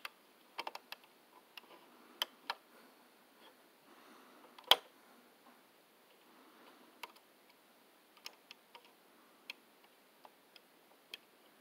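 Scattered small clicks and taps from a 1:32-scale die-cast toy semi truck being handled, its parts clicking as they are worked and its hood swung open near the end. One sharper click comes a little before halfway.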